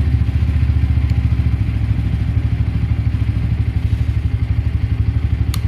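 Keeway SR 125's single-cylinder engine idling steadily after a self-start, with an even, rapid low pulse. A single sharp click comes near the end.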